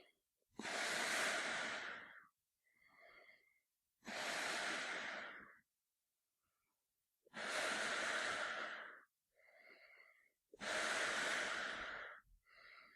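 A man breathing through a gas mask, slow and heavy: four long, loud breaths about three seconds apart, each followed by a shorter, fainter one.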